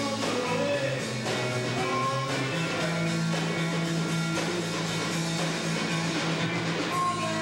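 Rock band playing live: electric guitar over a drum kit, with sustained guitar notes and steady drumming.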